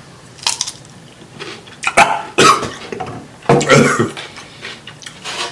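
A man biting and chewing a crisp, vinegar-dressed Persian cucumber, with a couple of sharp crunches. Short throaty vocal sounds follow about two and three and a half seconds in.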